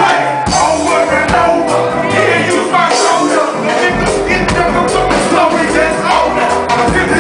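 Live band music with a singer's voice over bass, drums and instruments.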